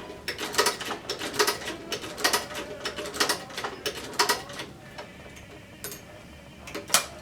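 Sewing machine stitching slowly through leather and zipper tape, a few sharp mechanical clicks a second, stopping about four and a half seconds in; one loud click near the end.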